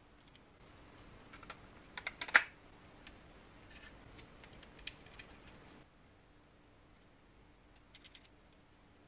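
Small clicks and light knocks from handling a 3D-printed plastic mouse shell, small screws and a precision screwdriver on a wooden table, sharpest in a quick cluster about two seconds in. A few faint ticks near the end as the screwdriver works a screw into the shell.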